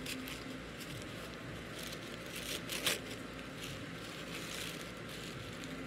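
Dull scissors cutting through a plant's paper and plastic wrapping, with a few crinkling snips, the sharpest just before three seconds in, over a steady low background noise.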